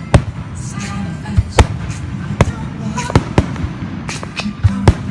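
Fireworks going off: about half a dozen sharp bangs, irregularly spaced, over a constant crackle.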